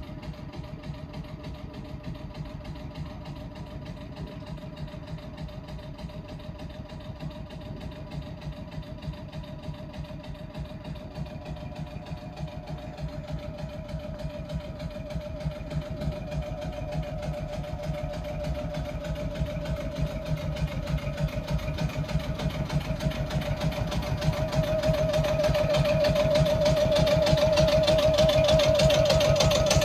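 The onboard air compressor of a Pacific Electric 'Blimp' interurban electric car running, with a fast, steady pulse over a hum and a steady whine, growing louder through the stretch.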